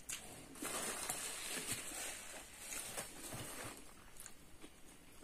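A paper napkin crinkling and rustling as it is crumpled in the hands, a dense crackle that lasts about three seconds and then fades.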